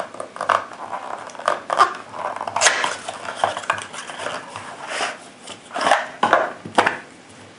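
A cardboard ammunition box being opened by hand and its tray of 20 .308 Winchester cartridges slid out: rustling and scraping of the cardboard with light clicks and clinks of the metal-cased cartridges in their tray. The handling comes as an irregular string of short sounds, with a cluster near the end before it stops.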